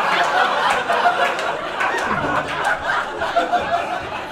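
Audience laughing at a roast joke, a loud, sustained wave of laughter and chuckles from the crowd.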